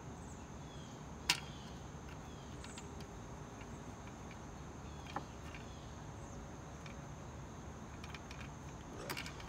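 Hard plastic parts of a Dolphin robotic pool cleaner being handled as the manifold is worked onto its housing: one sharp click about a second in and a softer one around five seconds. Underneath is a quiet steady background with a faint high tone.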